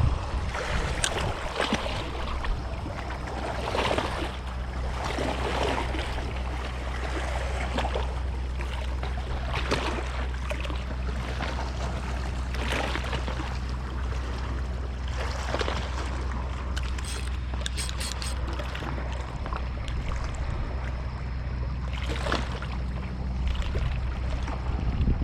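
Boat engine running at a steady low hum, with water splashing and slapping irregularly every second or two.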